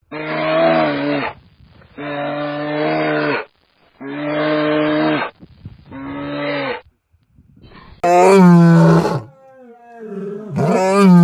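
Deep roaring calls of a large wild predator: four long drawn-out calls about two seconds apart, then two louder, harsher roars near the end.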